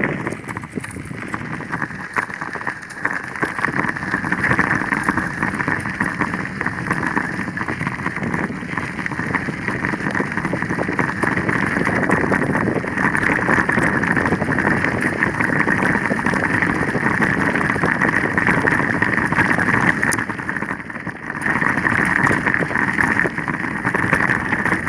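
Wind rushing over a handheld camera's microphone on a moving bicycle, a steady noise that dips briefly about twenty seconds in.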